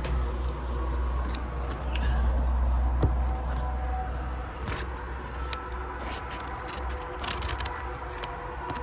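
Scissors cutting thin cardboard: a run of short, irregular snips, over a low rumble.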